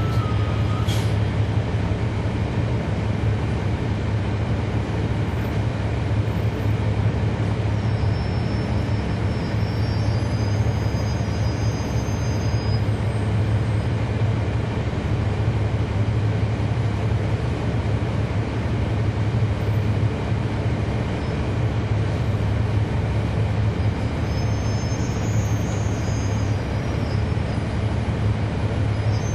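Cummins ISL9 diesel engine of a 2011 NABI 40-SFW transit bus running with a steady low drone that holds the same pitch throughout.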